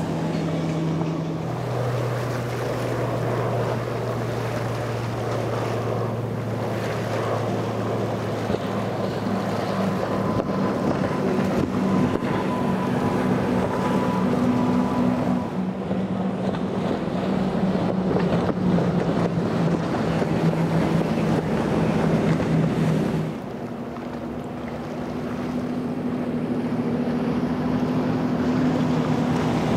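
Outboard motors of center-console boats running at speed past the shore, one boat after another: a steady engine drone over hull spray and wind on the microphone. The engine note jumps to a new pitch a few times as a different boat takes over, from a single Mercury 115 outboard to twin Yamaha 350s.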